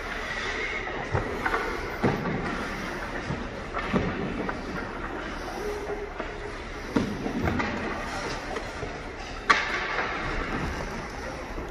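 Indoor ice rink sound: a steady hum with scattered scrapes and knocks of goalies' skates and gear on the ice, the sharpest knock about nine and a half seconds in.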